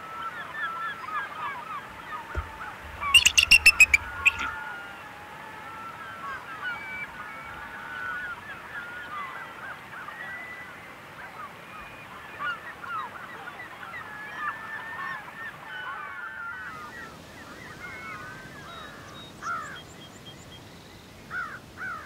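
Bald eagles calling: many overlapping high, squealing calls, with one loud, close chattering call of quick repeated notes about three seconds in. The calls are the squabbling of eagles competing for a fish.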